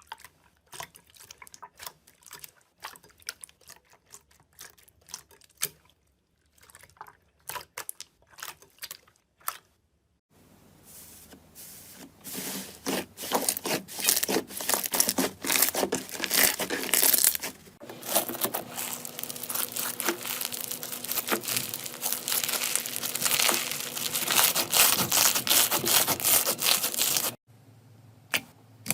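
Slime being pressed and squished by hand, making sticky clicks and pops: sparse clicks for the first third, then a dense crackling that cuts off suddenly near the end, after which sparse clicks return.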